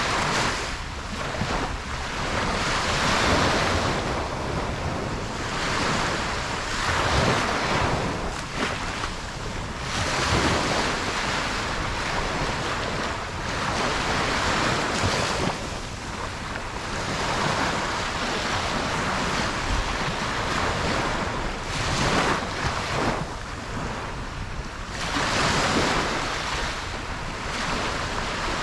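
Ocean surf breaking and washing up a beach, a steady rush that swells and falls back every three to four seconds.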